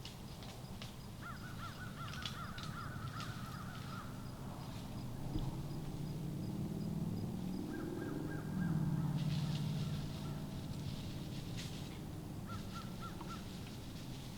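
Crows cawing in the distance in three bouts: a quick run of caws, a longer call near the middle and four short caws near the end. A low rumble swells and fades through the middle.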